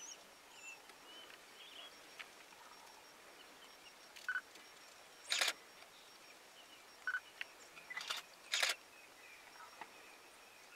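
Camera shutter clicks: about five sharp clicks in the second half, two of them with a short beep. Faint high chirping calls sound in the first two seconds.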